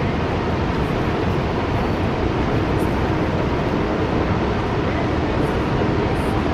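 Steady, unbroken rush of water from the American Falls at Niagara, heaviest in the low range.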